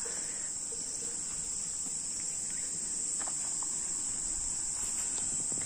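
Steady, high-pitched chorus of insects, a continuous shrill drone.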